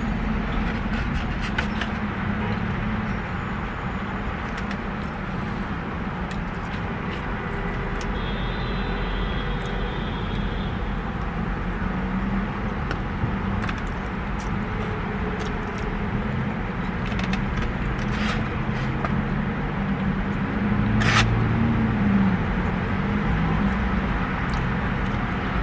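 Steady hum of a parked car running, heard from inside the cabin, with scattered light clicks of a plastic fork against a takeout container.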